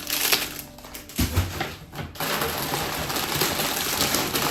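Plastic packaging rustling and crinkling as items are handled, in a few short bursts and then continuously from about two seconds in.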